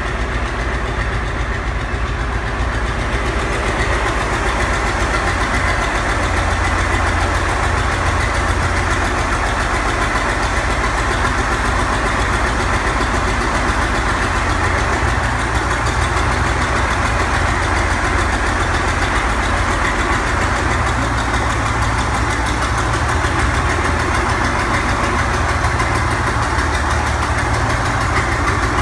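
Diesel engines of a Siamese Twin Caterpillar D8 crawler running steadily at idle, a little louder after the first few seconds.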